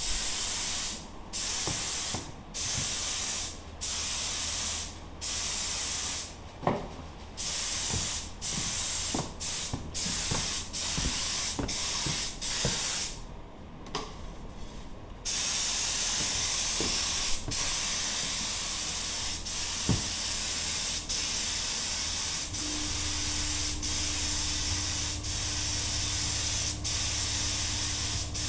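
Air spray gun spraying rubber-based contact adhesive. It hisses in short bursts about a second apart, then keeps up a longer unbroken spray through the second half. A low steady hum joins in about two-thirds of the way through.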